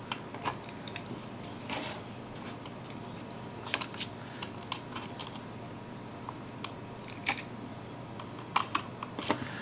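Scattered small clicks and taps of hard plastic and small tools while a computer mouse is being handled and reassembled, with a few quicker runs of clicks about four seconds in and near the end.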